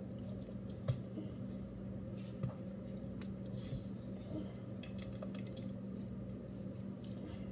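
Soft squishing of a crumbly mixture being scooped from a metal bowl and rolled into balls between bare hands, with a couple of small knocks against the bowl, over a steady low hum.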